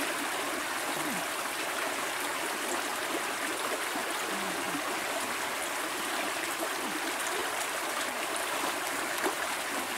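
River water flowing steadily past, an even, unbroken noise of current.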